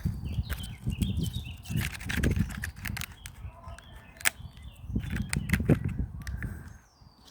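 Footsteps on a woodland path, with birds chirping in the background; the steps stop briefly near the end.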